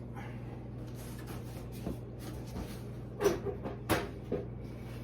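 Cardboard shipping box and packing being handled: a small knock about two seconds in, then a quick run of knocks and scrapes a little past halfway, over a steady low hum.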